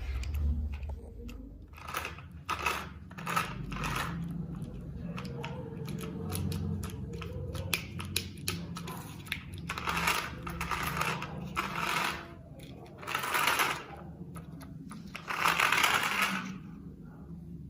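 Battery toy remote-control stunt car's small electric motors whirring as it drives on a hard floor, with frequent clicks and knocks from its plastic body and wheels, and a few short louder rushes of noise in the second half.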